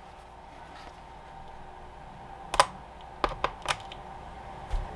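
Alligator-clip jumper lead clacking against the terminals of a 12 V lithium iron phosphate battery as it is deliberately short-circuited: a handful of sharp metallic clicks about halfway through and near the end, with a little spark at contact, the battery's BMS cutting off the short.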